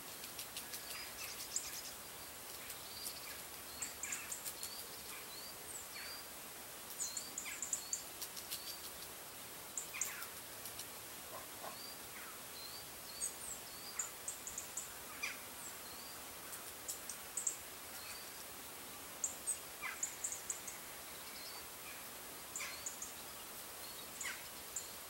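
Outdoor ambience of small birds chirping: many short high-pitched notes and quick slurred chirps scattered throughout, over a steady background hiss.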